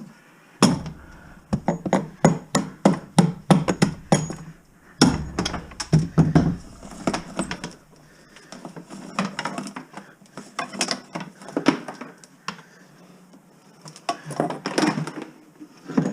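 Irregular knocking, tapping and clinking of hard objects being handled, in quick clusters with short pauses between, as when scrap metal, cable and tools are moved around.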